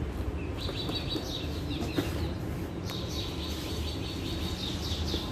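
Small birds chirping in quick, repeated short calls over a steady low background hum, with a couple of faint clicks about two and three seconds in.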